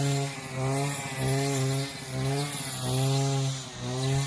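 Grass trimmer running while mowing, its motor note steady in pitch and swelling and dipping in loudness about once a second.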